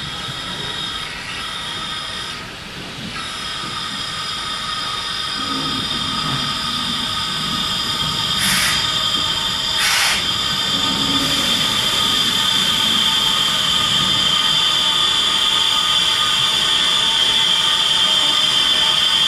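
Steam locomotive, LBSCR Billinton radial tank 0-6-2T No. B473, moving slowly toward the listener: steam hissing with a steady high whine that grows louder as it comes closer. Two short, sharp hisses of steam come about eight and a half and ten seconds in.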